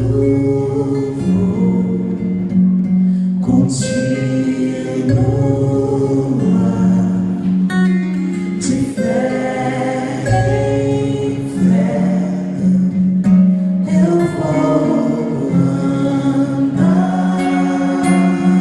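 Music: acoustic guitar playing chords, with a singing voice.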